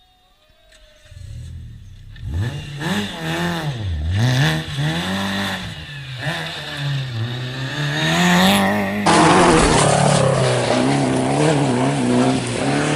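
A rally car's engine approaching and revving hard, its pitch rising and falling sharply with throttle and gear changes. About nine seconds in it cuts abruptly to another rally car running at high revs.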